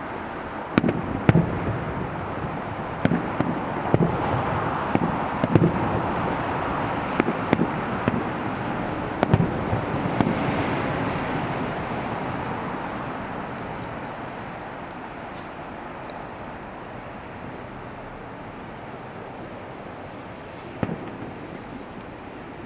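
Aerial fireworks bursting: a run of sharp bangs, several a second at times, over the first ten seconds or so. Underneath is a steady rushing noise that swells and then slowly fades, and one more bang comes near the end.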